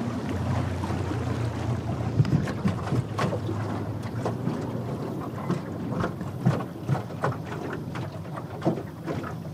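Small boat rocking on choppy water with scattered knocks and handling noise while a jug line is hauled in, and wind on the microphone. A low steady hum fades out about two seconds in.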